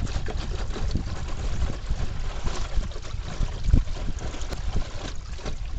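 Wind buffeting the microphone over the rush and slap of water along the hull of a small sailing canoe yawl under way, a gusty low rumble that rises and falls.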